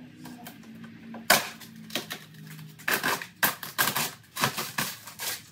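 Rear widebody fender flare being cracked off a Dodge Charger's wheel arch. There is one loud sharp crack about a second in, then a quick series of cracks and snaps as the flare breaks loose.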